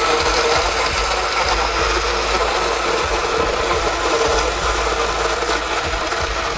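Oster Blend N Go personal blender's 250-watt motor running at its single speed, the blade blending juice, fruit and ice in the sport bottle pressed down on the base. A loud, steady whirr.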